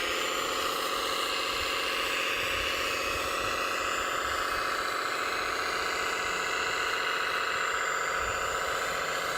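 Radio-controlled truck's electric drive motor and gearbox whining steadily under load.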